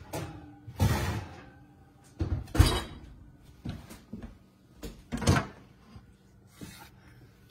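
A series of clunks and knocks of metal cake pans being handled and set down on a wire cooling rack, the loudest about two and a half seconds in.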